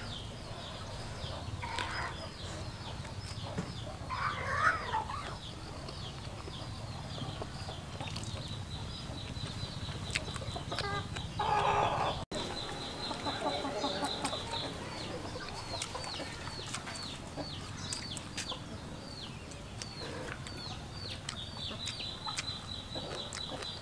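Chickens clucking now and then, with a louder cluck about four and a half seconds in and another burst about eleven seconds in, over a steady high chirping of quick repeated notes.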